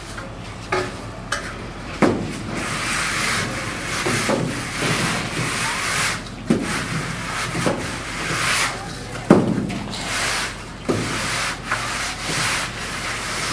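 Wooden straight edge scraped in repeated strokes over fresh, wet cement render to level the coat, a rough rasping sound with a few sharp knocks between strokes.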